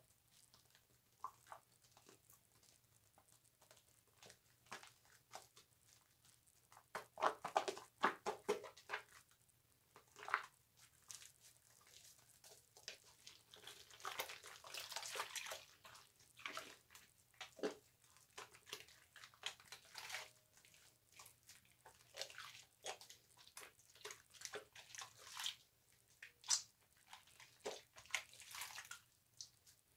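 Bar soap being lathered wet, with soft squishing, crackling and swishing of foam in irregular strokes, busiest about seven to nine seconds in.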